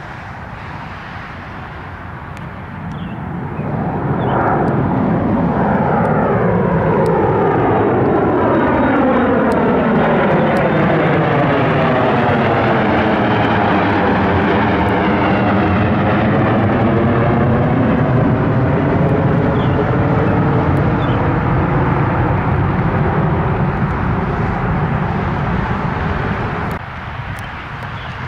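Airliner passing overhead: its engine noise swells about four seconds in and holds loud, with a whooshing sweep that falls and then rises again as the aircraft goes over. It cuts off abruptly near the end.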